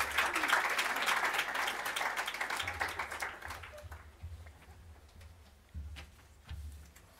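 An audience applauding, the clapping thinning out and fading over about four seconds, then a few soft low thuds.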